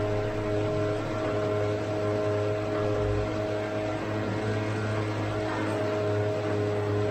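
Mountain bike's rear tyre spinning on a wheel-on indoor trainer: a steady drone with a low hum and several held tones above it.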